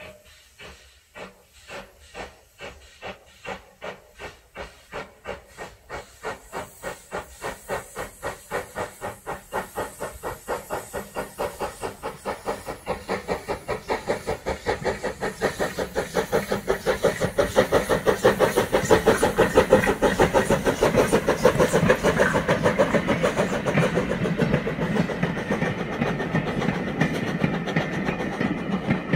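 LB&SCR A1X 'Terrier' 0-6-0 tank engine W11 Newport pulling away with a train, its exhaust beats quickening from about two a second to four or five a second and growing steadily louder as it approaches, with steam hiss.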